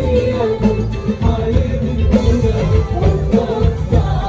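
Live band playing an Arabic pop song, with a wavering sung melody over the accompaniment.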